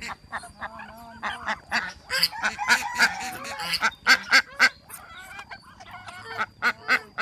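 A flock of domestic geese and ducks honking and quacking, many short calls overlapping, busiest in the middle.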